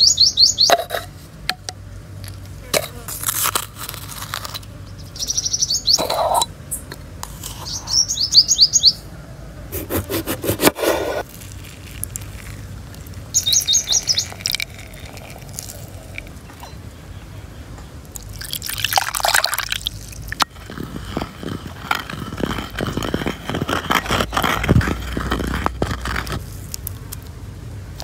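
Small birds chirping in short, rapid, high-pitched trills, about four times, with scattered knocks and rustles between and a stretch of hissing noise near the end.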